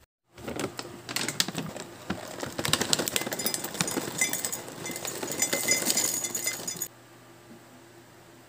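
Granola poured from a pouch into an empty glass mug: many small dry pieces click and rattle against the glass. The clattering stops abruptly about seven seconds in.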